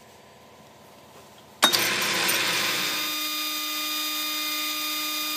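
Atlas lathe and a die grinder mounted on its tool post switch on about a second and a half in with a sharp start, then settle into a steady high-pitched whine as they spin up for a grinding pass on the chuck jaws.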